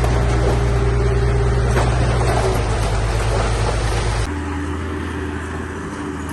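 Heavy diesel construction machinery running steadily under load with a deep, even drone. A little over four seconds in, the sound switches abruptly to a quieter engine with a different, higher note.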